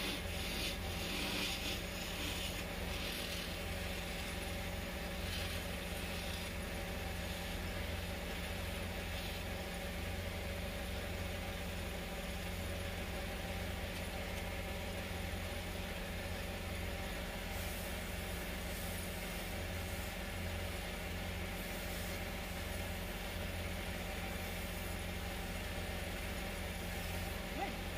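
Wood lathe motor running steadily with an even hum, turning teak, with short hissing spells in the first few seconds and again about two-thirds through as a chisel cuts the spinning wood.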